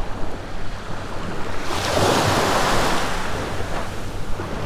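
Small surf waves washing onto the beach, with one wave breaking and rushing in about two seconds in, the loudest part. Wind on the microphone.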